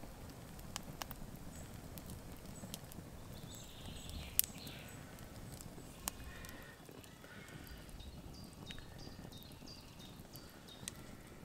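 Open wood campfire crackling, with sharp irregular pops over a low steady rumble of the flames; the loudest pop comes about four and a half seconds in.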